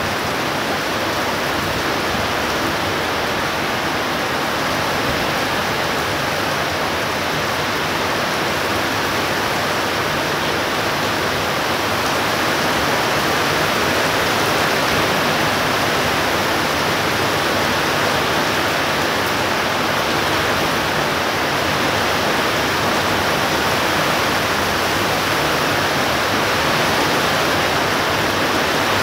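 Heavy thunderstorm downpour: a dense, steady hiss of rain, growing a little louder about twelve seconds in.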